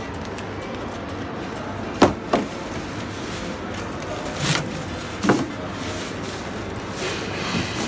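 Bags of fruit and vegetables being handled and set down on a tiled floor: a few sharp knocks and thuds, four standing out, over a steady background hubbub.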